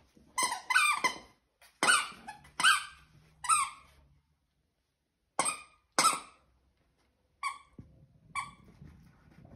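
Squeaker in a plush caterpillar dog toy squeaking as a corgi puppy bites it: quick runs of short squeaks, with a pause of about a second halfway through and weaker squeaks near the end.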